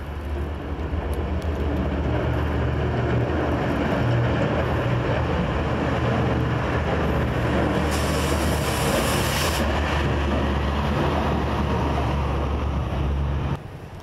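Heavy snowplow truck's diesel engine running as it drives past with its plow blade down, a steady low rumble that builds over the first couple of seconds. A brief hiss comes about eight seconds in, and the sound stops abruptly near the end.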